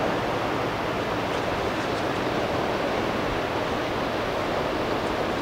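Steady rushing of river water and wind as a bulk carrier barge passes close by, pushing a bow wave, with no distinct events.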